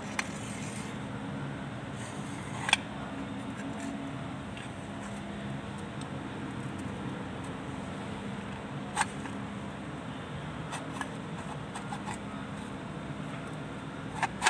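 A few sharp metallic clicks as a splined steel propeller shaft, its tube and clamps are handled and fitted together, over a steady low hum.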